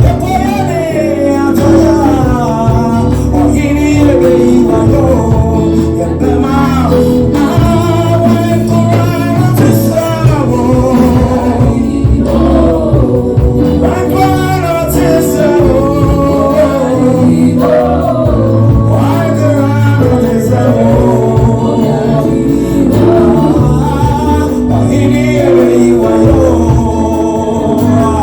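Gospel song: singing over a sustained bass line.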